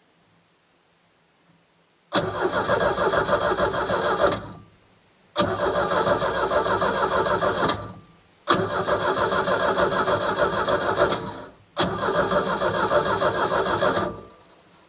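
Starter motor cranking a four-cylinder engine in four separate tries, each a couple of seconds of fast, even churning that starts with a click and stops without the engine catching.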